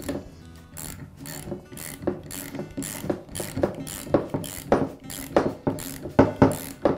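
Socket ratchet wrench clicking in quick strokes, about three a second, as it tightens the thermal relief valve into a new pressure washer pump. The clicks grow louder in the second half.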